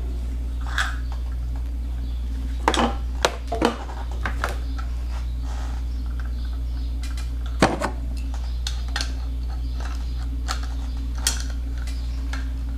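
Metal CO2 regulator and Y splitter fittings being handled and twisted by hand, with scattered light metal clinks and knocks, the loudest a few seconds in and again near the middle. A steady low hum runs throughout.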